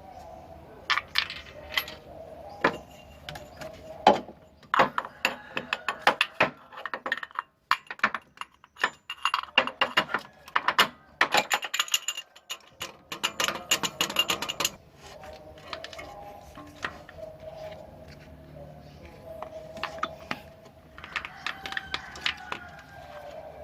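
Hand tools clicking and clinking against metal in quick runs, busiest for about the first fifteen seconds and sparser after, while a spark plug is being changed on the engine.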